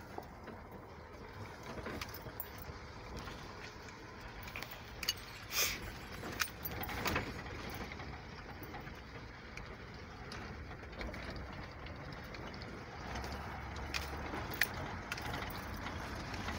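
Vehicle driving on a dirt road, heard from inside the cab: steady tyre and road noise with scattered clicks and knocks from the cab rattling over the rough surface.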